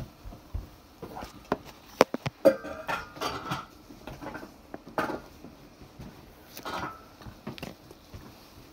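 Light clatter of kitchenware being handled, scattered knocks and clicks with two sharp ones about two seconds in.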